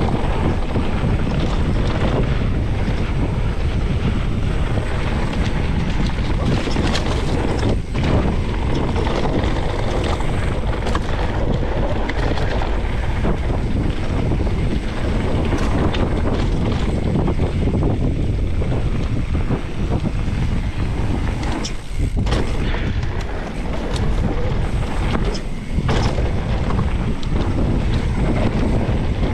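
Wind buffeting an action camera's microphone on a mountain bike riding fast down a dirt singletrack, with tyres rumbling and scattered clicks and rattles from the bike over bumps.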